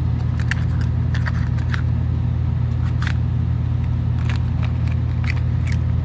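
Scattered small clicks, crackles and rustles of the relay kit's parts and wiring being handled, over a steady low hum.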